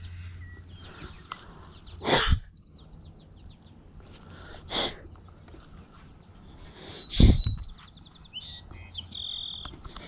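Small birds chirping in a quick series of high, sliding notes, one ending on a short held whistle near the end. Three brief loud noisy rushes come through, about two, five and seven seconds in.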